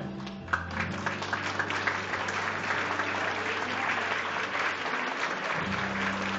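Audience applauding, breaking out about half a second in as a group's sung performance ends.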